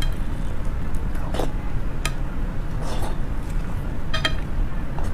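A spoon scooping soft marrow out of a braised beef bone: a few short wet clicks and squelches about a second apart, over a steady low background rumble.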